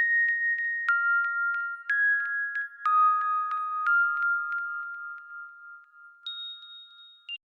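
Huawei P20 Pro alarm tone: bell-like chime notes struck about once a second, each ringing on and slowly fading, with a single higher note near the end.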